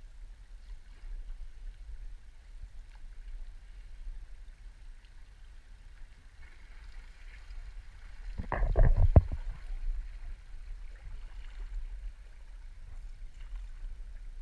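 Canoe on a slow creek with faint water hiss and small knocks. About eight seconds in, bare overhanging branches scrape and crack against the canoe for about a second, in a quick cluster of snaps and knocks that is the loudest sound.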